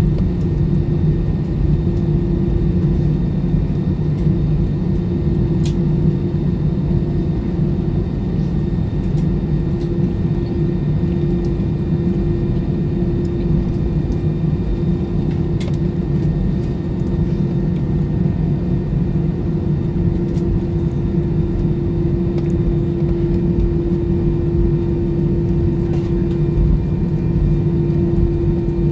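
Steady low drone of an airliner's jet engines at taxi idle, heard inside the cabin, with a constant hum note and a few faint ticks.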